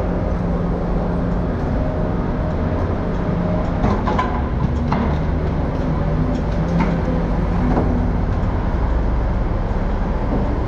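Steady low rumble of a vehicle engine running, its pitch shifting a little, with a few short knocks or clanks about four to eight seconds in.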